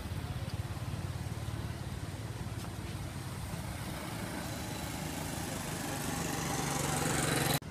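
Steady engine and road noise of a passing motor vehicle, growing louder toward the end, then cutting off suddenly.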